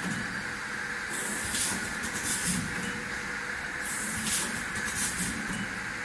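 Four-lane sachet packing machine running: a steady mechanical hum, with two short bursts of hissing air, about a second in and about four seconds in, as its cycle repeats every few seconds.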